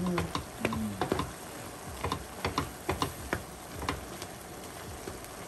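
Wooden spatula stirring and scraping ground chicken and diced peppers in a skillet, knocking against the pan in irregular clicks and taps over a low sizzle.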